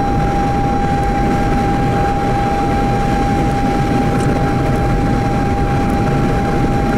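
Vehicle cabin noise while driving: a steady low rumble of road and wind. A single steady, high-pitched tone is held over it throughout.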